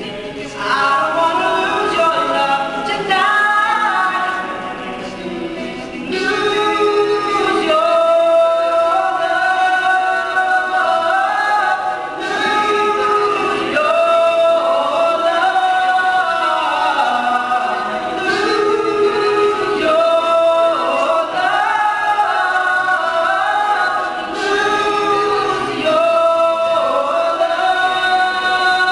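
All-male a cappella group singing unaccompanied, several voices moving together in harmony.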